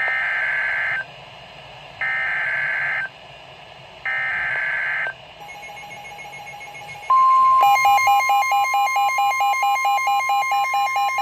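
NOAA Weather Radio SAME alert header: three roughly one-second bursts of screeching digital data tones, two seconds apart. About seven seconds in, the steady warning alarm tone starts, and half a second later weather radio receivers join with loud, rapid alert beeping as they trigger on the incoming warning.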